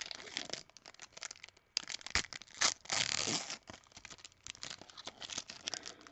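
Wrapper of a baseball card pack crinkling and being torn open, with one longer, louder tear about three seconds in.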